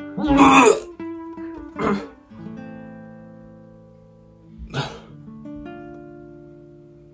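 Background music of plucked acoustic guitar. A loud rasping burst comes about half a second in, and shorter ones come near two and five seconds.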